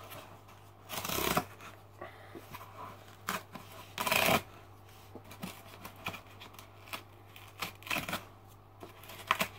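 Cardboard record mailer being pulled and torn open by hand, stiff and hard to open: two loud rips of cardboard about one second and four seconds in, with softer scrapes and clicks of handling between.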